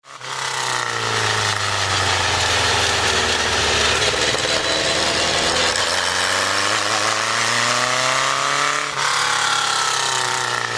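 Super Seven sports car's engine running hard on the road. The revs drop off, then climb steadily, then break briefly about nine seconds in, a gear change, before climbing again. A heavy rush of wind and road noise runs under it.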